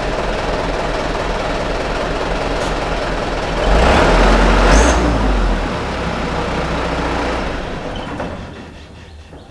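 Truck engine idling with a steady low hum. About four seconds in comes a louder burst of noise lasting about two seconds, and the engine sound dies away near the end.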